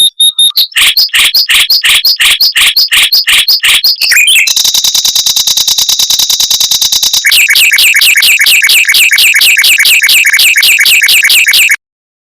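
Mockingbird singing fast runs of repeated notes: first sweeping notes about three or four a second, then a very rapid high trill, then a quick rolling series of lower notes that cuts off abruptly near the end.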